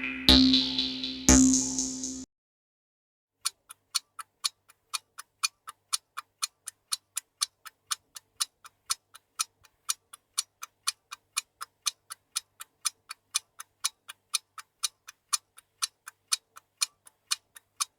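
Three electronic pulses, each sweeping upward in pitch over a steady low tone, cut off about two seconds in. After a short silence a clock ticks fast and evenly, several ticks a second, alternating louder and softer ticks.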